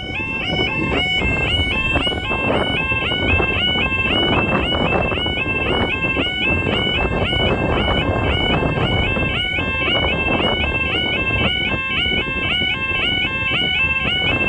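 Automatic half barrier level crossing alarms sounding continuously: two very loud electronic alarms, each a fast warbling tone that keeps rising and falling, warning that a train is approaching while the barriers are down.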